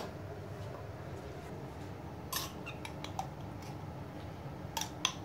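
A few short, light clinks of kitchen utensils against bowls, about two to three seconds in and again twice near the end, over a faint steady background hiss.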